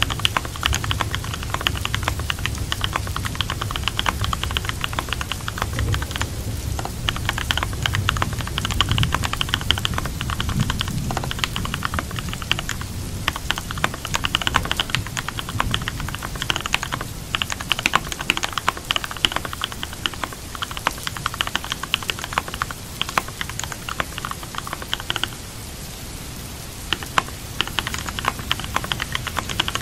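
Computer keyboard typing in rapid runs of keystrokes with brief pauses every few seconds, over a steady hiss of rain.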